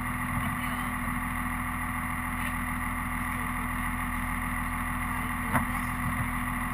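Dodge pickup's Cummins straight-six turbodiesel idling steadily, heard from inside the cab, with a single sharp click about five and a half seconds in.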